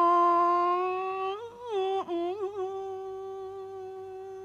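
A man's voice chanting a Northern Thai blessing verse that names the house posts, drawing one syllable out into a long held note. About a second and a half in, the note wavers in a quick turn, then holds steady and slowly fades.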